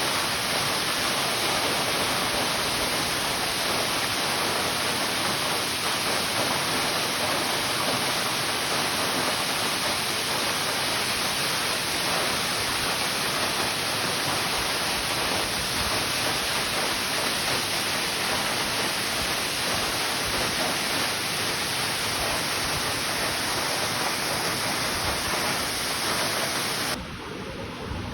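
Ryuzu Falls, a cascading waterfall, rushing steadily. About 27 seconds in the water noise abruptly drops to a quieter rush with low wind-like rumbles.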